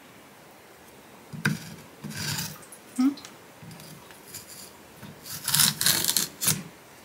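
Julienne peeler scraping along a raw carrot in a few separate strokes, then a quick run of louder strokes near the end.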